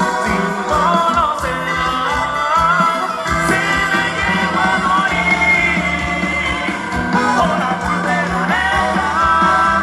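Live grupero band playing: a gliding melody line over bass and a steady drum beat.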